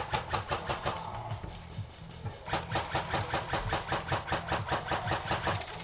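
Airsoft electric gun firing full-auto in two long bursts of rapid, evenly spaced shots, about eight a second. The first burst trails off about a second and a half in, and the second starts about two and a half seconds in and runs nearly to the end.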